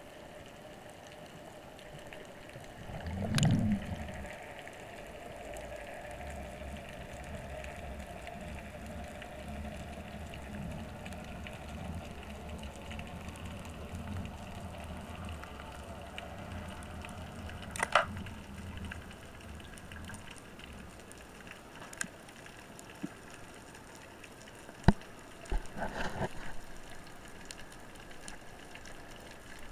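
Underwater sound picked up through a camera housing: a faint steady hum and a low rumble of moving water. A louder muffled thump comes about three seconds in, and scattered sharp clicks and knocks follow later, with a short cluster of them near the end.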